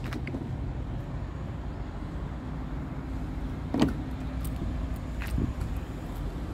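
Steady low rumble of an idling truck diesel engine. A sharp knock comes about four seconds in, and a lighter one about a second and a half later.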